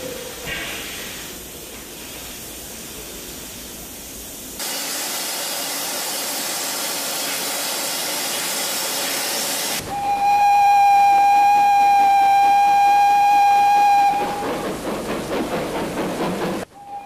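Steam locomotive sounds: a steady hiss of escaping steam that grows louder about four seconds in, then a single long, steady steam-whistle blast for about four seconds, the loudest part. After the whistle come a few seconds of rapid, uneven puffs of steam, which cut off suddenly near the end.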